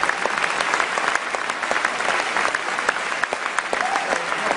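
A large theatre audience applauding: dense, steady clapping from many hands, with no let-up.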